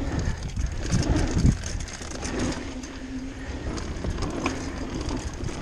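Mountain bike tyres rolling fast over a wooden boardwalk, a dense clatter of slats and rattling bike parts, with a few heavier thumps about a second in.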